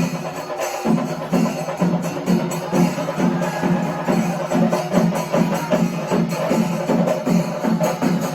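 Music with a steady, driving percussive beat.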